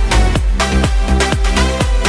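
Electronic dance music with a steady fast beat and heavy bass.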